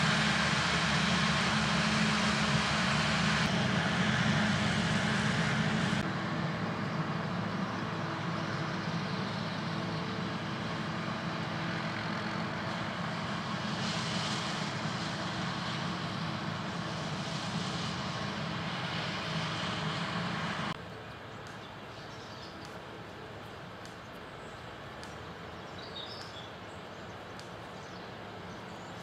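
Claas Jaguar 820 self-propelled forage harvester running steadily as it chops maize, with a tractor pulling a trailer alongside. About 21 s in, the sound drops suddenly to a fainter, distant machine noise.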